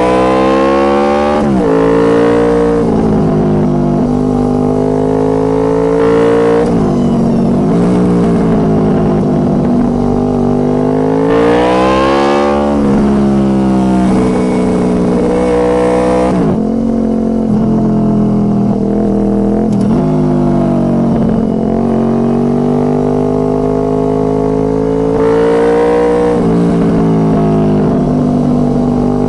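2006 Honda VFR800 Interceptor's V4 engine through a Two Brothers Racing exhaust, loud, its revs climbing under acceleration and dropping away sharply several times, then rising again.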